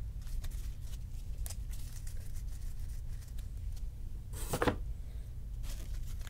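Trading cards handled on a table: a few soft clicks and a brief rustle about four and a half seconds in, a smaller one near six seconds, over a low steady hum.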